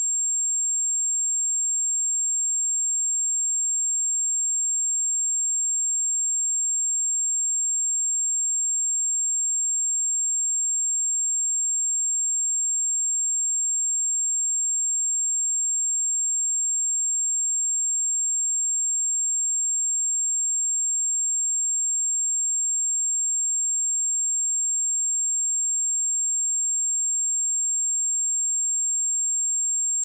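A single pure 7454 Hz sine-wave test tone, a steady high-pitched whistle held at constant level without change.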